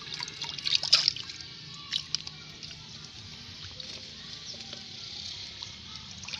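Water splashing and sloshing as someone wades and gropes by hand in a shallow, muddy pool, with a few sharp splashes in the first two seconds and quieter dripping after.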